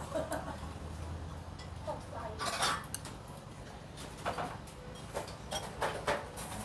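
Dishes and utensils clinking against bowls, several short separate clinks, over a steady low hum.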